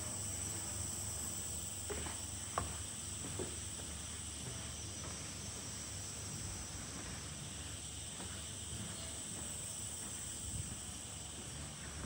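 Rainforest insects, crickets or cicadas, keeping up a steady high-pitched drone. A few short knocks sound about two to three seconds in.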